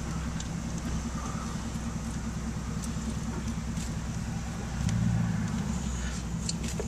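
Car engine running slowly in traffic, a steady low hum heard from inside the cabin, swelling a little about five seconds in.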